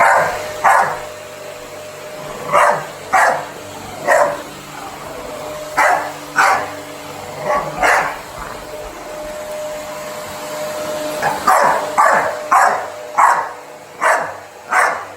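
A dog barks repeatedly, in irregular runs of short, sharp barks, over the steady hum of a running vacuum cleaner.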